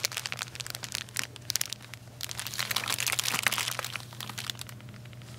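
Plastic film bag of dry spaghetti noodles crinkling as it is handled, most busily about two to four seconds in and thinning out near the end, over a faint steady hum.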